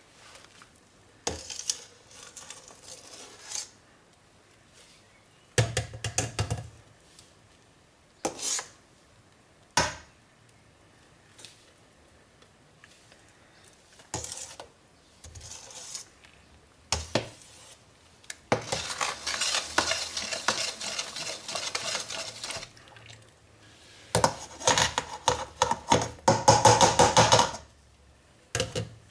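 Metal ladle scraping and knocking against a stainless steel pot while foam is skimmed off the dissolving soap. It comes in separate scrapes and clinks, with a longer stretch of scraping about two-thirds of the way through and a run of quick clatter near the end.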